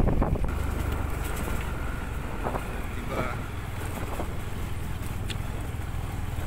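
Motorcycle engine running during a ride, with wind buffeting the microphone.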